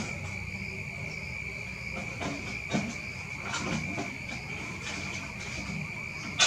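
Crickets trilling in one steady, unbroken high-pitched chorus. A few soft clicks sound over it, and a sharp click comes at the very end.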